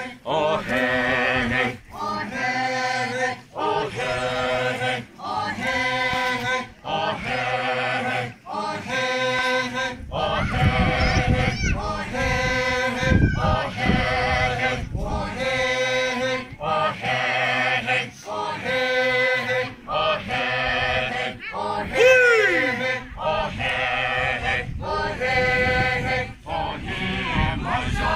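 A group of dancers chanting in unison in short, repeated phrases, about one every second and a half. About two-thirds of the way through, one voice gives a high call that slides up and down over the chant.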